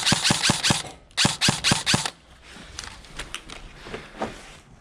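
Airsoft guns firing: a fast string of about eight shots in the first second, then four more spaced shots a little later, followed by fainter scattered shots.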